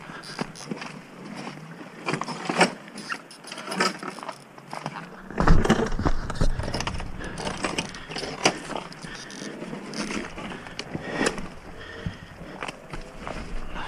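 Dirt bike coming down a steep rocky descent: the tyres and the bike clatter over rocks, with many separate knocks and a heavy thump about five and a half seconds in.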